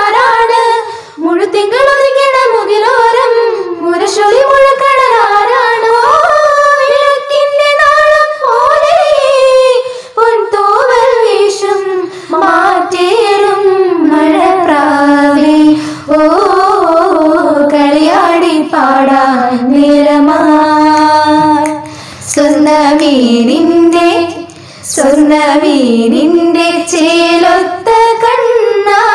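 Women singing unaccompanied, a mashup of South Indian film songs, with short breaths between phrases; the melody moves to a lower register about twelve seconds in.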